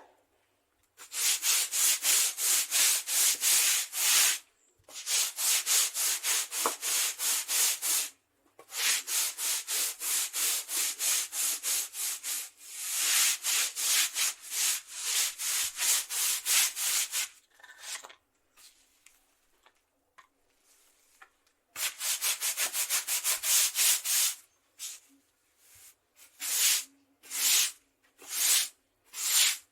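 Concrete being scrubbed: quick back-and-forth scratchy strokes, about four a second, in runs of several seconds with short pauses between them. Near the end the strokes come singly and more slowly.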